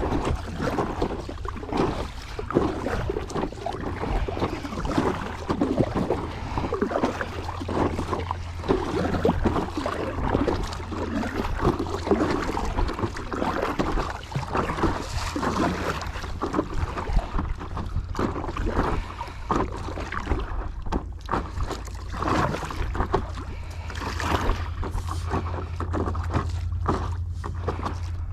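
Paddle strokes splashing and water sloshing around a small paddle craft, in an irregular rhythm, with wind rumbling on the microphone throughout.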